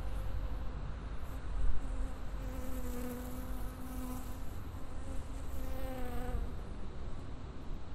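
A flying insect buzzing in a binaural 3D-sound recording, its pitch wavering slightly. The buzz is strongest from about two and a half seconds in and stops about six and a half seconds in, over a steady low rumble.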